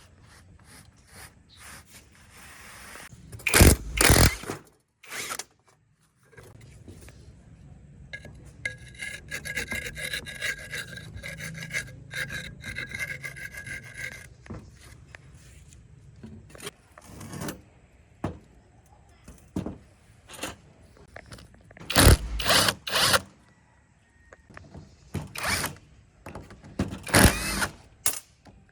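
Workshop hand work on metal parts: rubbing and scraping strokes, broken by several loud knocks, with a high ringing tone held for several seconds near the middle.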